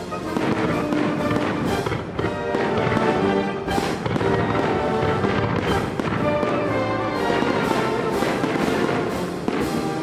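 Orchestral music with brass, mixed with the bangs and crackle of aerial firework shells bursting at intervals.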